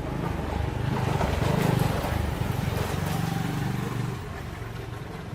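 Two-stroke chainsaw engine running, revved up about a second in and easing back near four seconds.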